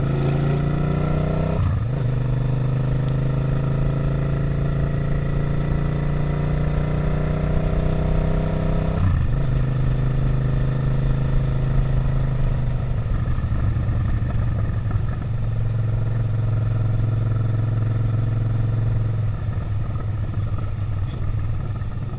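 Suzuki SV650's V-twin engine pulling through the gears: the revs climb, drop at an upshift about two seconds in, climb again for about seven seconds, and drop at another upshift around nine seconds in. The bike then cruises at fairly steady revs and eases off near the end.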